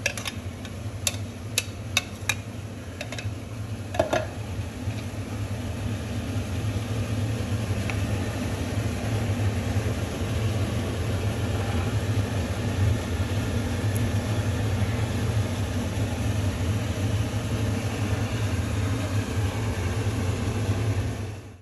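Steady low mechanical whir, with a handful of sharp clinks in the first four seconds as a blender jar and a metal spoon knock against a frying pan on the stove.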